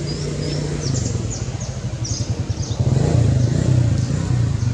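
A motor vehicle engine running nearby, a low steady hum that grows louder about three seconds in. A few short, high chirps sound in the first two seconds.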